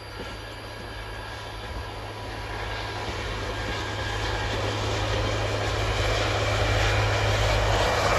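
KUJR Bratasena track-recording railcar approaching along the line, its engine drone and wheel noise growing steadily louder as it nears.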